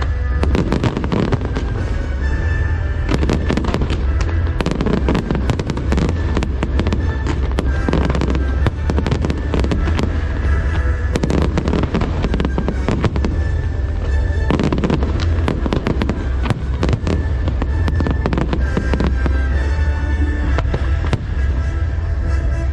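A fireworks display: aerial shells bursting in rapid, overlapping succession with crackles. Loud music with a heavy, steady bass plays underneath throughout.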